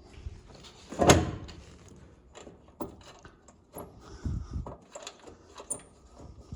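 Knocks and clicks of parts and tools being handled: one loud clunk about a second in, then scattered lighter taps and a low dull thud in the second half.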